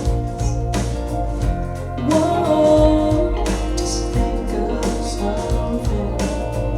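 A song played back for a listening comparison: a steady drum beat and bass under guitar, with a voice singing a wavering line from about two seconds in.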